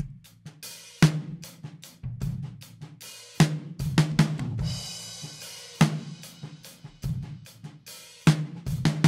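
Drum kit played back from a PreSonus PX-1 large-diaphragm condenser used as a talkback room mic, soloed and processed into a crushed room sound: punch pulled down, sustain raised and hard compression, so the cymbals wash on between the hits. Heavy hits land about every two and a half seconds, with lighter hits between.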